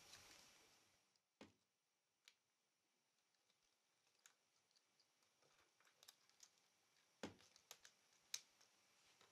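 Near silence with scattered faint clicks and taps as Normal 8 film and the Bauer T10 S projector's guide pins and sprocket parts are handled during hand threading. A faint hiss fades out about a second in.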